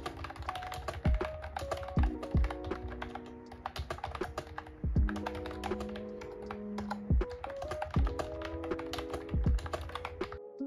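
Fast typing on a Mofii Candy wireless keyboard with round typewriter-style keycaps: a dense run of quick key clicks, with lofi background music and its beat underneath. The typing stops near the end.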